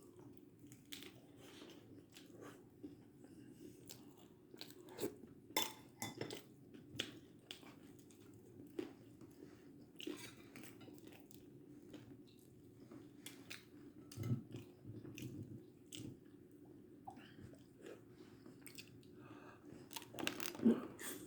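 Irregular soft clicks and crunches over a faint steady low hum, with a louder cluster near the end.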